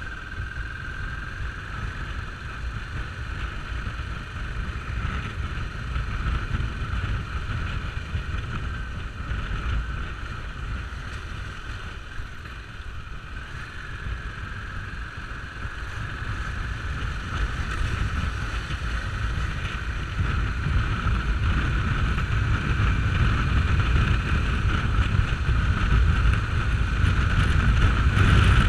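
Motorcycle engine running at road speed with heavy wind buffeting on the bike-mounted camera's microphone, growing louder over the last third.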